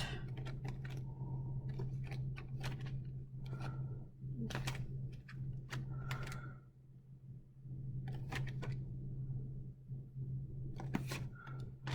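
Food containers and packages being handled and set down: scattered light clicks and knocks over a steady low hum.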